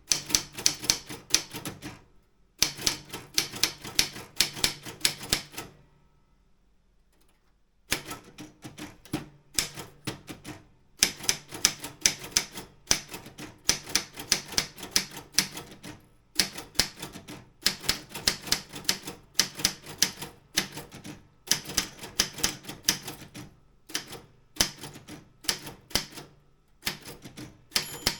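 Keys of an Optima M16 manual office typewriter being struck in quick runs of several keystrokes a second, with short breaks between runs and a pause of about two seconds near the quarter mark.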